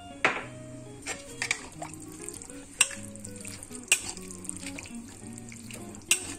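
A metal spatula stirring a thick, wet batter of grated white radish and rice flour in a stainless steel pan, with squelching and several sharp clinks as it scrapes and knocks against the side of the pan. Soft background music with held notes plays underneath.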